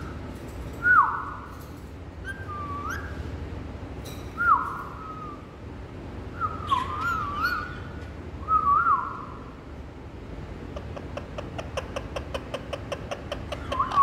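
Indian ringneck parakeet giving a series of short whistles that swoop up and down in pitch, one every second or two, then a fast run of clicking notes for the last few seconds.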